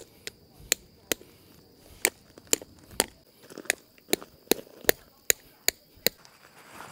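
A tent stake being driven into stony gravel ground with a handheld rock: a series of sharp knocks, about two to three a second, with a short pause a little over a second in, stopping near the end.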